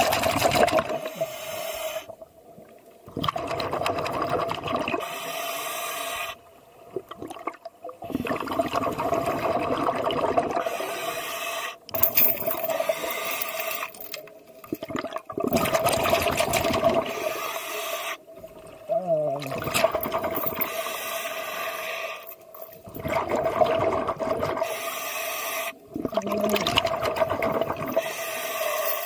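Scuba diver breathing underwater through a regulator: bubbling exhales and hissing inhales, in cycles every few seconds with brief silent pauses between breaths. A steady hum runs under the breathing.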